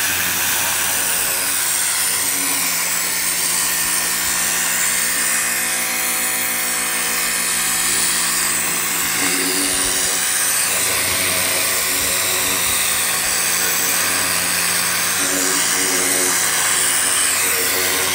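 Hart 2000 PSI electric pressure washer running steadily: a constant hiss of the water jet spraying onto a carpet over the hum of its motor and pump.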